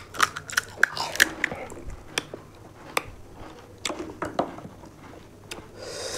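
Crisp, hollow panipuri shells cracking and crunching as fingers punch holes in them and mouths chew them: a run of sharp crackles, thickest in the first second and a half, then scattered.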